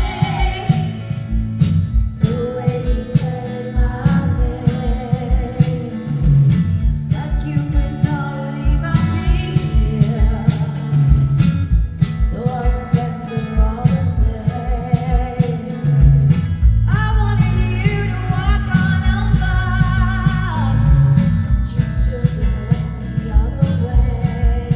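Rock band playing live: a singer's voice carries the melody over electric guitar, bass and drums beating out a steady rhythm.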